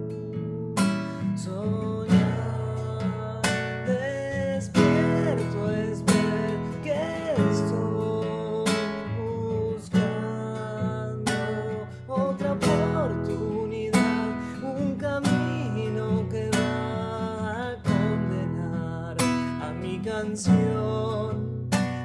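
Acoustic guitar strummed in chords, with even strokes about once a second. Near the end a voice sings the word "canción".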